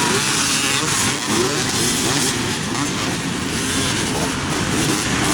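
Several off-road motorcycle engines running and revving together, their pitches wandering up and down.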